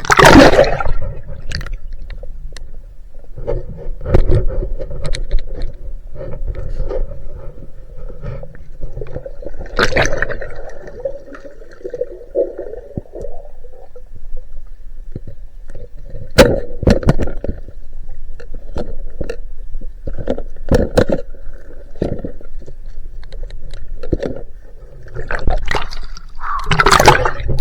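Water sloshing and splashing, with irregular knocks and scrapes.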